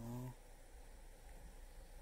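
A man's low voice murmuring briefly, ending about a third of a second in, then faint room tone with a steady low hum.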